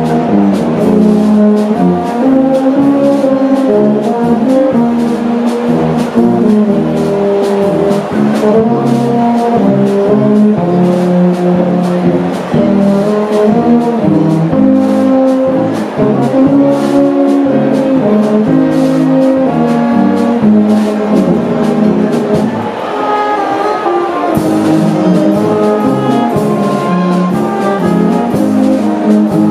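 Brass band playing a tune: trumpets and lower brass holding sustained chords over a steady beat.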